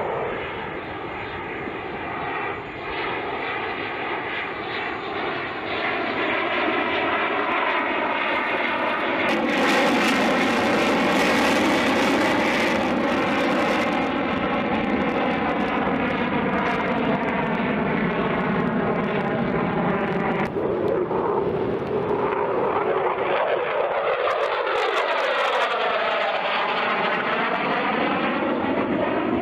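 F-16V Viper fighter jet's engine running hard, with the afterburner lit, during a display pass overhead: a continuous jet noise that grows louder about six seconds in and is loudest around ten to thirteen seconds. A whooshing, phasing sweep dips down in pitch and rises back up near the end as the jet passes.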